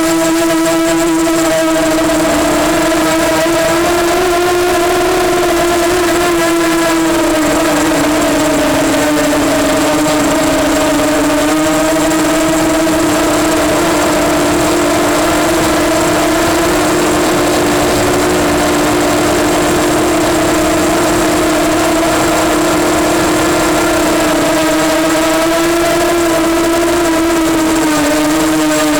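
EMax Nighthawk 250 quadcopter's electric motors and propellers humming steadily in flight, the pitch drifting slightly up and down as the throttle changes.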